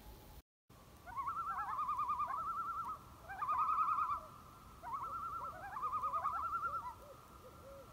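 Birds calling in several overlapping phrases of rapid, quavering calls with short gliding notes, starting about a second in and stopping near the end.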